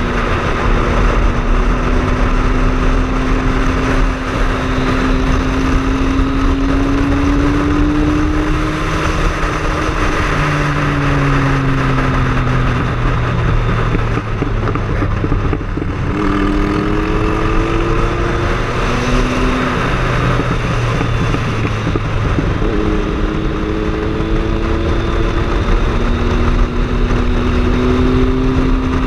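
Triumph Speed Triple's three-cylinder engine running under way, its pitch rising and falling, with two sudden drops that then climb again, one about halfway through and one about two-thirds of the way through, over steady rushing noise.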